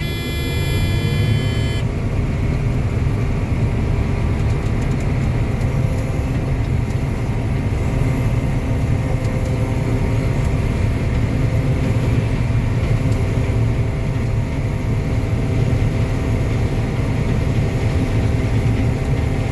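Combine harvester's diesel engine running steadily, heard from inside the cab as a continuous low drone. A high buzzing tone sounds over it for about the first two seconds.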